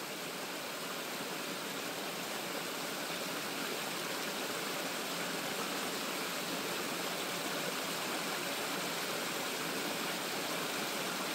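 Small stream running over stones in a rocky bed, a steady rush of water.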